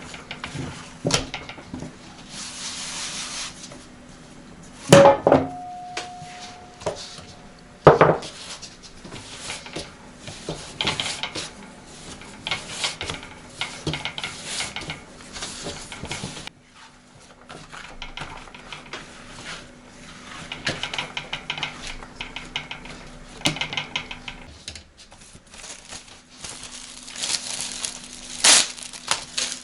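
Dishes and utensils clattering during kitchen food preparation, with irregular clinks and knocks throughout. There are two sharp loud knocks about five and eight seconds in, a steady ringing tone held between them, and a faint steady low hum underneath.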